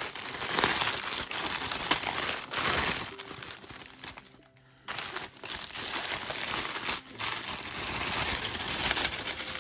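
Cellophane wrapper crinkling as hands pull it off a bundle of diamond-painting drill bags, with a short pause about halfway through.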